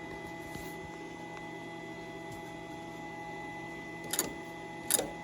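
Steady electrical hum with two sharp clicks near the end, as the carburetor's throttle flapper and linkage are worked by hand.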